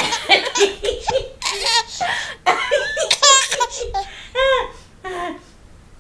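Baby girl laughing hysterically in several fits of rapid, high-pitched laughs, with short pauses between them.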